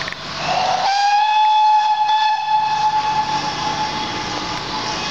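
Steam locomotive whistle blowing one long note: it swoops up in pitch about half a second in, holds steady for about three seconds, then fades.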